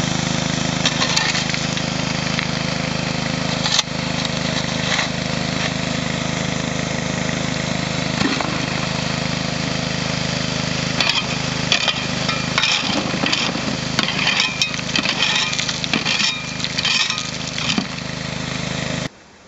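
Small petrol water pump engine running steadily, feeding a highbanker, with water splashing through the hopper. From about halfway, irregular clatters of gravel and stones shovelled onto the grizzly grate. The sound cuts off just before the end.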